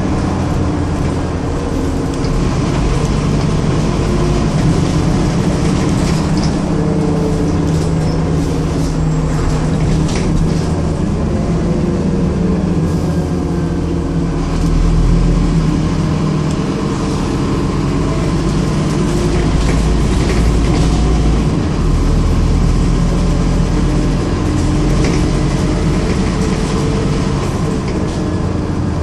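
Scania N230UD double-decker bus under way, heard from the upper deck: the steady drone of its five-cylinder diesel engine and drivetrain over road noise, with small rattles from the body. The engine note rises and falls about halfway through.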